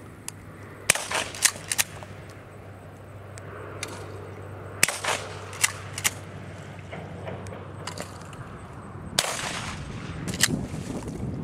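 Shotgun fired several times: sharp reports about a second in, a close group around five to six seconds, and two more near nine and ten seconds.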